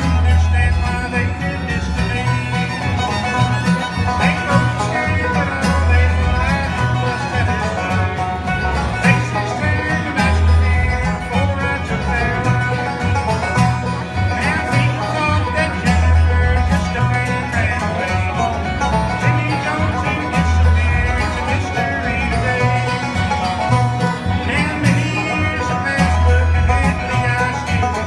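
Bluegrass band playing, with banjo, guitar and fiddle over a bass line that pulses every second or two.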